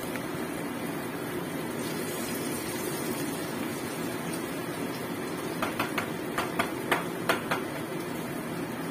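Batter-coated tempeh frying in oil in a wok, a steady sizzle. About six seconds in comes a quick run of around eight sharp clicks over two seconds.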